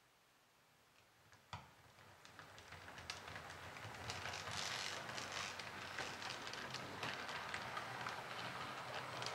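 H0-scale model train, an SU46 diesel locomotive model pulling a passenger coach, running along the layout track: wheels clicking over rail joints and points, growing louder as it approaches. A sharp click comes about a second and a half in.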